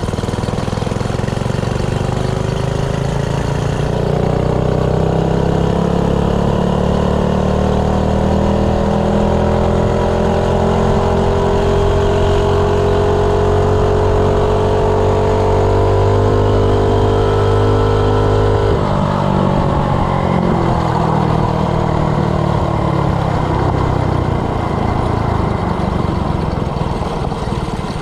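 Coleman 3 hp single-cylinder four-stroke minibike engine, on its stock carburetor, held at full throttle on a top-speed run, its pitch climbing slowly as the bike gains speed. About 19 seconds in the throttle is let off: the pitch drops suddenly, then keeps falling as the bike slows.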